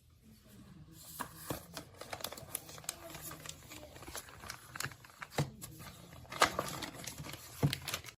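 Handling noise: rustling, crinkling packaging with irregular clicks and taps, loudest about six and a half and seven and a half seconds in, as the replacement refrigerator air filter is handled.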